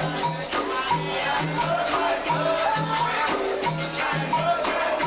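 Capoeira angola bateria playing: berimbaus struck in a steady repeating rhythm, with caxixi-style rattling and an atabaque drum, and voices singing over it.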